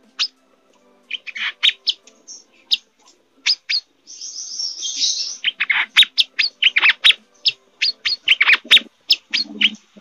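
Caged male sunbird (kolibri manggar) singing excitedly in breeding condition: a fast, irregular string of sharp, high chirps with a buzzy trill about four seconds in.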